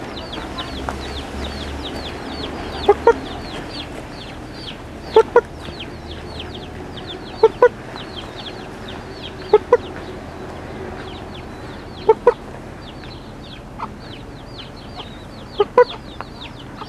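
Free-roaming hen clucking: short paired notes, "pop pop", repeated about every two seconds. A steady chorus of fast high chirps runs underneath.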